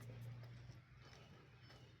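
Near silence outdoors: a faint low hum that fades about a second in, with a few faint ticks.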